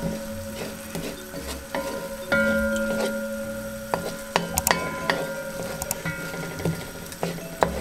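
Wooden spoon stirring diced onions frying in a metal pot, with scrapes and sharp knocks of the spoon against the pot, over light background music with held notes.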